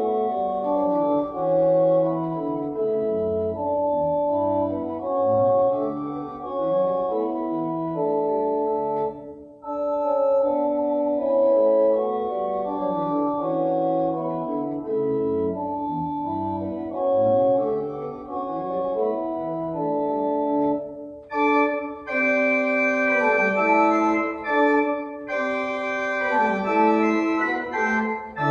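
Organ playing a hymn-tune arrangement on the manuals only, with chords and moving lines and no pedal bass. About three quarters of the way through it turns brighter and fuller.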